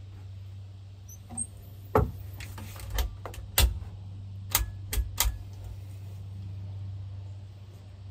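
A string of sharp clicks and knocks, about seven spread over a few seconds, from a Barnett Hyper Raptor crossbow being handled at the rail and stock, over a steady low hum.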